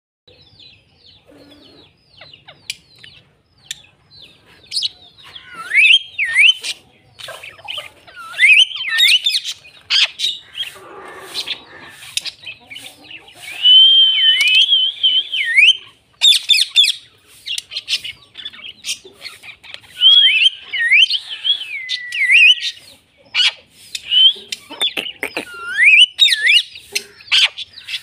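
Caged parrots calling: soft, quick chirping for the first few seconds, then loud, shrill squawks and swooping whistles that repeat over and over.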